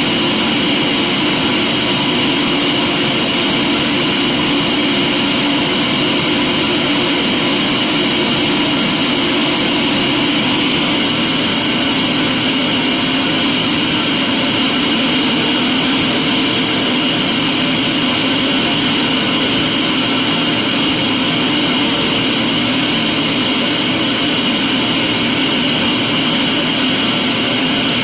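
Vacuum cleaner motor running steadily, a loud even whooshing drone with a high whine; its pitch shifts slightly about ten seconds in.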